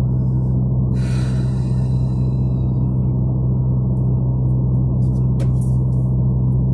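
Steady low drone inside a car's cabin: engine and road hum holding one even pitch throughout. A brief rush of higher hiss comes about a second in, and two faint clicks a little after five seconds.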